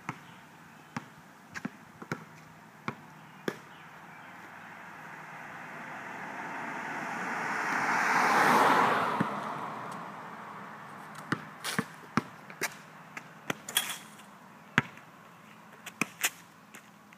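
A Chevrolet sedan driving past on an asphalt road, its noise swelling to a peak about halfway through and fading. Before it, a basketball bounces on the asphalt a handful of times, and after it the dribbling picks up again, quicker and irregular.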